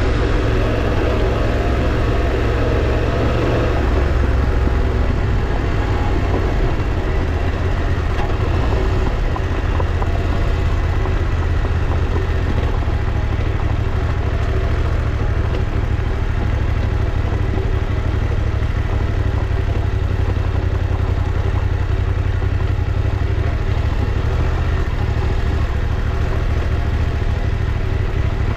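Motorcycle running steadily while being ridden, with a heavy low rumble throughout.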